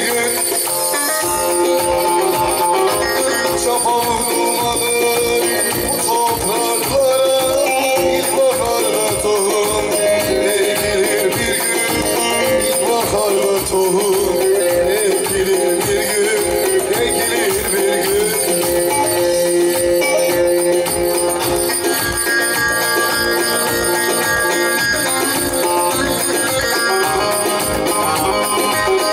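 Turkish folk music of the Teke region: a bağlama (long-necked saz) played with a plectrum over electronic keyboard accompaniment, with a steady beat.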